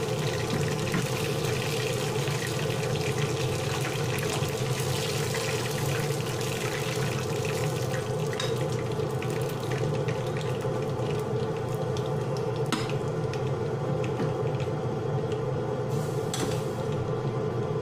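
Turmeric-spiced chicken pieces frying in hot oil in a pan: a steady sizzle with fine crackling of spattering oil, which thins out in the second half as the pieces are lifted out and the oil bubbles on in the empty pan. Two sharp clicks near the end, over a steady low hum.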